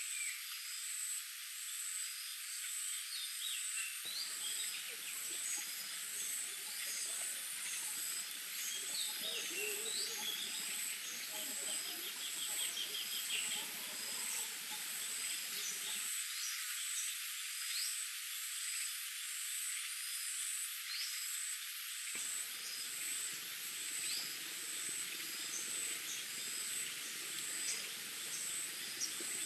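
Forest ambience: a steady, high-pitched, pulsing insect trill with scattered short bird chirps over it.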